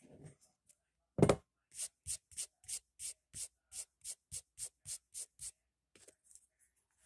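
A rubber eraser rubs briefly on paper, then a single loud thump a little over a second in. Then come quick, even strokes of a fingertip sweeping eraser crumbs across the paper, about four a second, which stop near the end.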